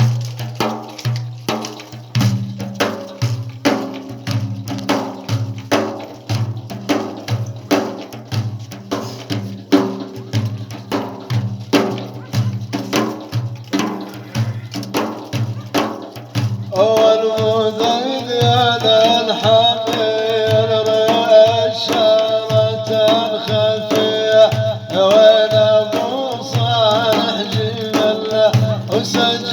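Instrumental break in Middle Eastern folk music: a steady drum rhythm plays alone at first, and a sustained melody instrument joins about seventeen seconds in, after which the music is louder.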